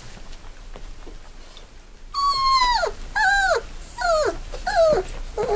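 Three-week-old Doberman puppy crying: four high whining cries about a second in from the halfway point, the first the longest, each dropping in pitch at its end, then a few smaller, lower yelps near the end.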